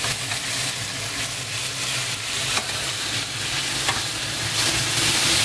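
Diced chicken sizzling as it fries in hot butter in a pan, a steady hiss, with a couple of sharp clicks about two and a half and four seconds in.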